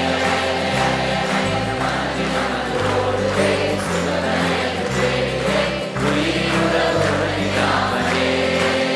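Music: an instrumental passage with a steady beat and a bass line that changes note every second or so.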